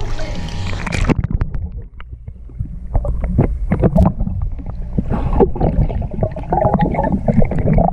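Muffled underwater sound from a camera submerged in a swimming pool: low rumbling with irregular bubbling and splashing clicks. The higher sounds cut out about a second in as the camera goes under the surface.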